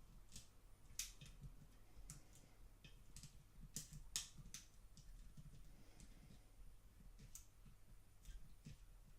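Faint, irregular metallic clicking of lock-pick wires and a tension tool working inside a padlock, about a dozen sharp ticks spaced unevenly.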